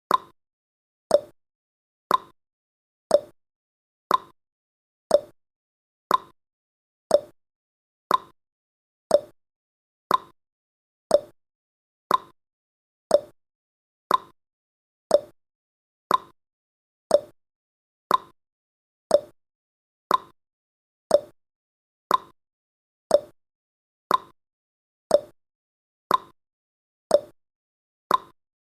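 Countdown timer's tick sound effect: a short tick once a second, perfectly even.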